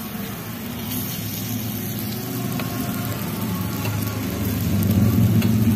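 Meat and sausages sizzling on a tabletop gas grill plate, under a low engine rumble from a motor vehicle that grows louder through the second half.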